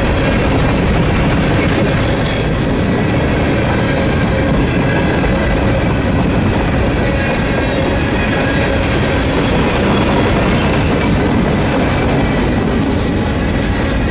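Freight cars (lidded gondolas, then boxcars) rolling past close by: a steady rumble of wheels on rail with faint, thin, high-pitched wheel squeal.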